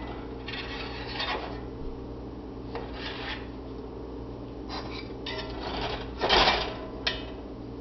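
Kitchenware being handled: a few short scrapes and clatters, the loudest about six seconds in as a plastic bowl is picked up, then a sharp click. A steady low hum runs underneath.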